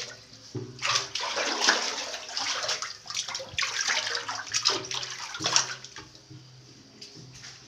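Hands splashing and slapping in shallow water on a tiled pool floor while grabbing at fish, in irregular bursts that die down about six seconds in.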